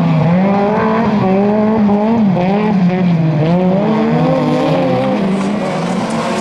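Several autocross touring-car engines running hard on a dirt track, their pitch rising and falling over and over as the drivers work the throttle.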